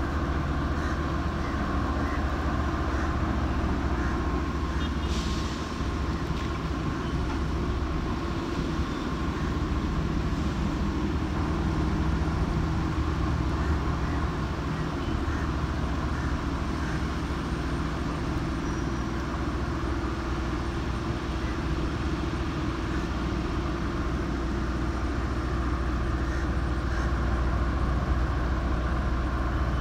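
Tugboat diesel engines running steadily under load at close range, a low even drone, with water churning in the propeller wash.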